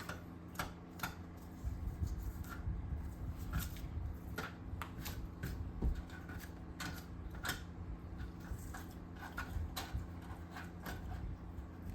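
Irregular small clicks and scratches as metal shavings and foam insulation are dug and scraped out of a freshly drilled peephole hole in a foam-core metal door.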